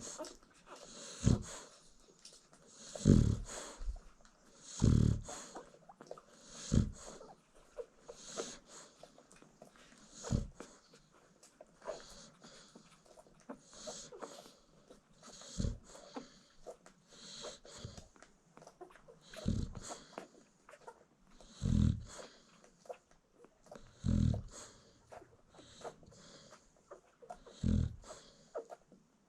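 American Bully dam snoring in her sleep: a rough, low snort on each breath, about one every two seconds, with a hissy draw of air between.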